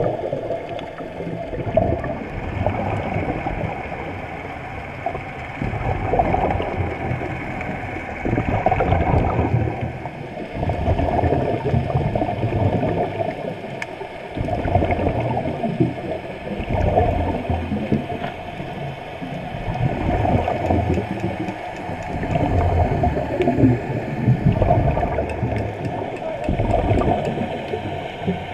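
Muffled underwater sound of divers breathing through regulators, with bubbly gurgling that surges every few seconds as breaths are let out.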